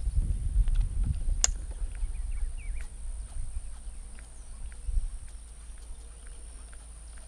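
Low rumble of wind buffeting the microphone, strongest in the first couple of seconds and then easing, with scattered light clicks and a few faint short chirps over it.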